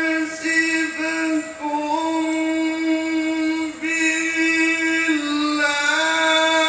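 A male Quran reciter's amplified voice chanting in long, ornamented held notes, in the melodic tilawah style, with a few short breaks for breath.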